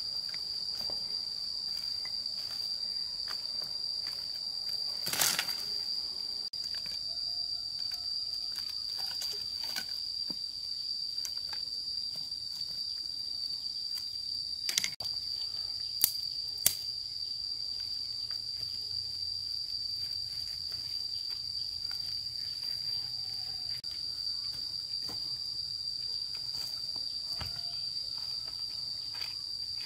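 Steady high-pitched drone of insects, unbroken throughout. A few sharp clicks cut through it: one about five seconds in and three more between fifteen and seventeen seconds.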